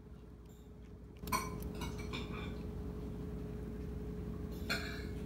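Cat crunching dry kibble picked up off a tiled floor: a cluster of crisp crunches about a second in and another near the end.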